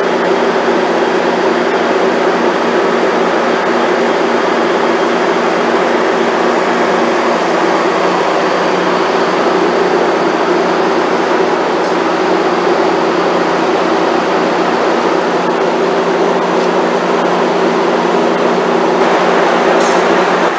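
Steady diesel drone of a BNSF GE AC4400CW locomotive hauling a Metrolink commuter train as its bilevel coaches roll slowly past, several low steady tones held throughout.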